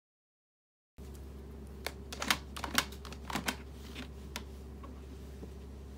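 Electric pet water fountain's pump humming steadily, starting about a second in, with a run of about a dozen irregular light clicks and taps from the cat at the fountain for about two and a half seconds.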